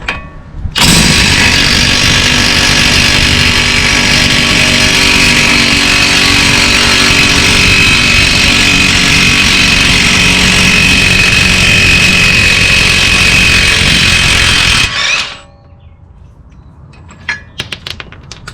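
A 1/2-inch impact wrench on a 30mm socket running without a break for about fourteen seconds as it removes a front axle nut, then stopping abruptly. A few light clicks follow near the end.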